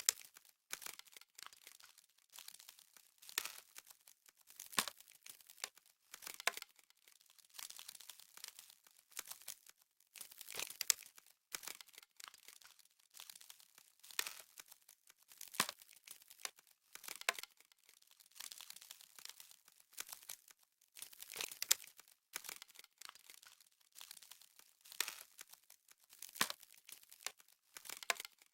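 Crisp, irregular crackling and crinkling, the sound of frost, coming in uneven clusters every second or two.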